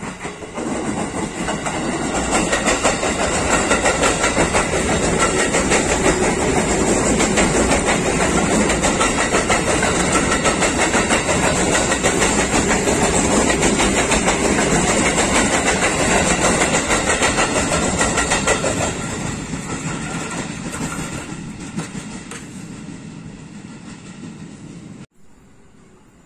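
KRL commuter electric multiple unit passing at close range, its wheels clattering over the rails in a rapid, even rhythm. It builds over the first couple of seconds, holds steady, fades as the train moves off, and cuts off abruptly near the end.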